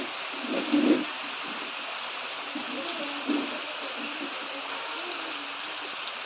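Steady rain hissing, with faint voices underneath and a louder voice briefly about a second in.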